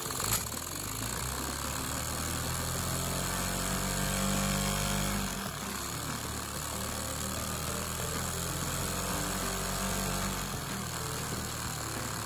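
Lego vacuum engine running and turning the high-torque Lego clutch: a fast mechanical chatter over a steady hiss, its speed falling and rising a couple of times.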